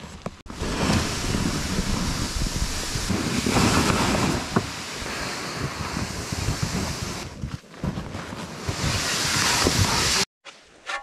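Plastic pull sled dragged over snow: a steady rushing hiss with irregular low bumps as it slides and jolts, mixed with wind on the microphone. It cuts off suddenly near the end.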